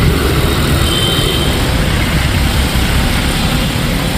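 Road traffic driving through a flooded street: vehicle engines running under a steady wash of noise with a heavy low rumble.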